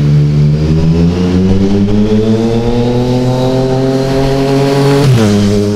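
Yamaha XSR900's three-cylinder engine accelerating toward the microphone, its exhaust note climbing steadily in pitch through one gear. About five seconds in the pitch drops suddenly as the rider shifts up, and the engine pulls on in the next gear.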